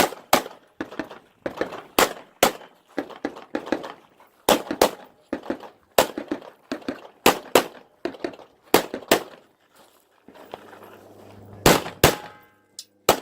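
Rifle shots fired at an irregular pace, roughly one to three a second, some coming close together in pairs. A short pause comes about ten seconds in, after which a low steady hum runs under the last few shots.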